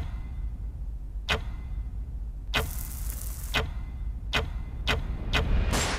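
Trailer sound design: a low steady drone under sharp ticks that come faster and faster, with a rushing swell in the middle and again near the end.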